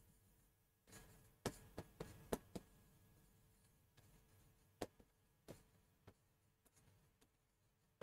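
Near silence broken by faint taps of a pen-style stylus on an interactive board's screen while writing: a quick run of about five taps a couple of seconds in, then two single taps a few seconds later.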